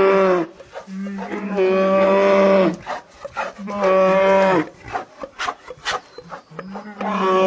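An animal calling in long, moo-like calls, about four of them, each lasting one to two seconds and dropping in pitch at the end.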